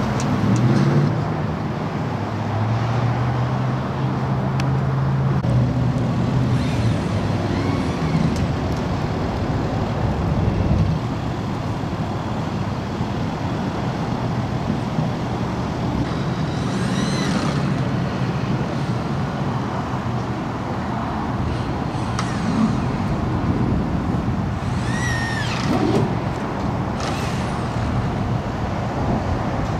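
Steady road traffic noise with a vehicle engine running low for the first ten seconds or so, and a few short high squeals that rise and fall, near the middle and later on.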